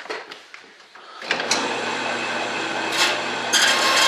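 Bandsaw switched on with a click a little over a second in, its motor and blade then running steadily with a low hum. Near the end a louder, hissing grind joins as a small metal air fitting held in pliers is fed into the blade.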